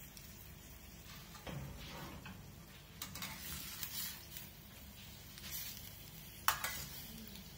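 Slotted metal spatula stirring and scraping lobster meat in a stainless-steel pan, with the butter frying at a low sizzle. Near the end the spatula strikes the pan once with a sharp clink.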